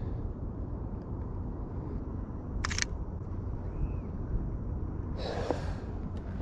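Sony Alpha 7 II camera shutter firing once, a short sharp click a little under three seconds in, over a steady low wind rumble on the chest-mounted microphone. A short rustle of clothing follows near the end as the arms come down.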